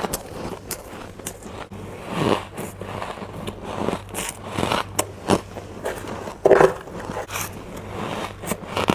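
Close-up biting and chewing of powdery, crispy humidifier ice: irregular crunches and squeaky crackles, with a few louder bites.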